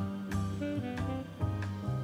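Background music: a jazz-style instrumental with a bass line and a steady beat.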